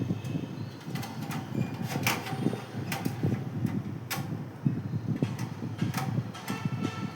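Irregular sharp clicks and knocks, one or two a second, over low rustling: computer parts and packaging being handled during a PC build.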